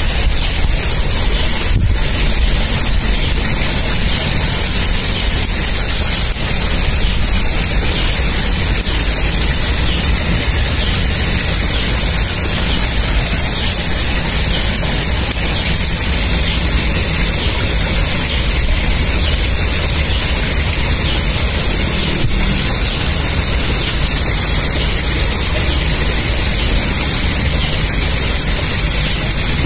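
A steady, loud rushing hiss with no distinct events.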